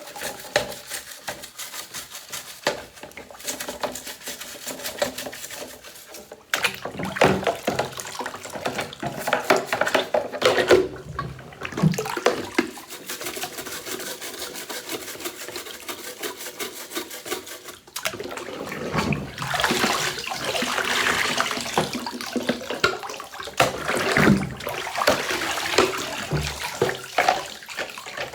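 Water running and splashing while parts of a Shark vacuum are scrubbed and rinsed by hand. It gets louder about two-thirds of the way through.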